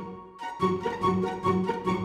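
Instrumental background music: a brief dip, then a quick, regular run of short notes.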